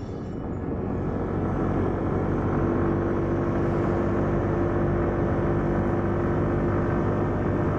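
Car driving along a highway, heard from inside the cabin: steady engine and tyre noise that fades in over the first second or so.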